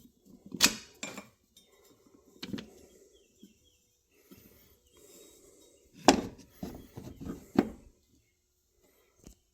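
Metal parts clinking and knocking as they are handled and set down: a few sharp knocks near the start, then a louder cluster of four or five about two-thirds of the way through.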